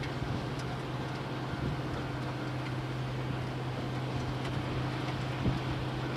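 Steady low hum over an even outdoor noise, with occasional low thumps of wind hitting the microphone.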